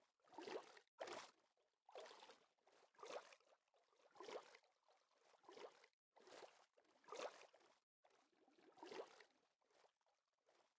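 Faint water swishes, repeating about once a second.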